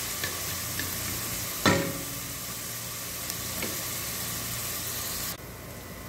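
Chopped onion and garlic sizzling in hot oil in a stainless steel pot, stirred with a wooden spoon at first, with one loud knock about a second and a half in. Near the end the sizzle drops abruptly and becomes much quieter.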